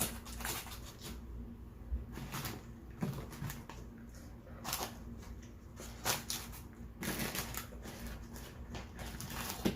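Irregular clicks, taps and rustles of takeout food containers and packaging being handled and closed up, with no burp in this stretch.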